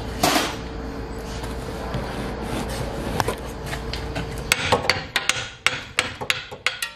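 Steel hammer blows on a car's steering knuckle and lower control arm. A few single knocks come first, then a quick run of hard strikes, several a second, in the last two seconds or so.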